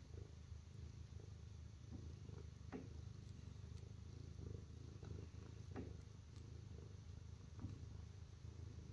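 Domestic shorthair cat purring faintly and steadily.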